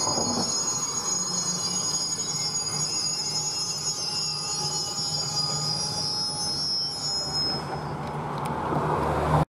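A rake of empty open box freight wagons rolling slowly round a curve, the wheels squealing in several steady high-pitched tones over a low rumble. The squeal fades about three-quarters of the way through.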